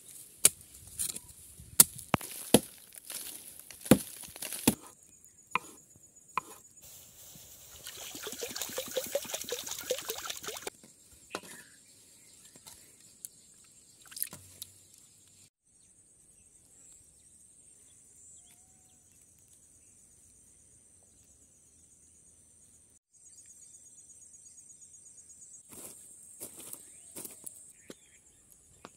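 Crickets shrilling steadily at a high pitch through the second half. Before them come a run of sharp knocks in the first five seconds and a few seconds of rushing, liquid-like noise; a few more knocks come near the end.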